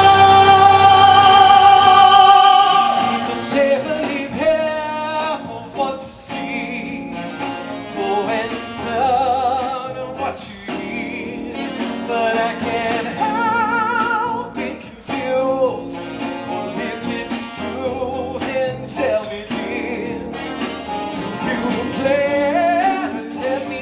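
A singer holding a long sustained note, which ends about three seconds in, followed by more singing with vibrato over instrumental accompaniment.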